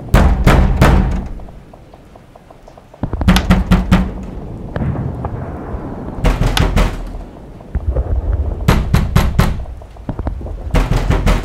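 Groups of sharp, rapid knocks over deep booming thuds, a cluster every two to three seconds, with quieter rumbling between.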